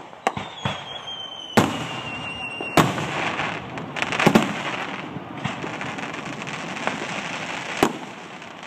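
Aerial fireworks shells bursting with a string of sharp bangs. A whistling tone slides slightly down in pitch through the first few seconds, and a dense crackling fills the middle, with louder bangs about four seconds in and again near the end.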